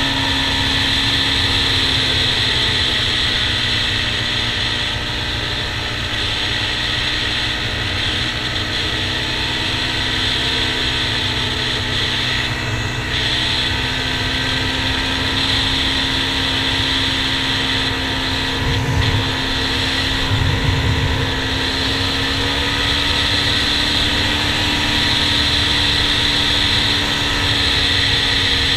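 Honda TRX400EX quad's single-cylinder four-stroke engine running steadily at cruising speed, its note drifting slightly in pitch, with wind rumble on the helmet-mounted microphone. A couple of low thumps about two-thirds of the way through.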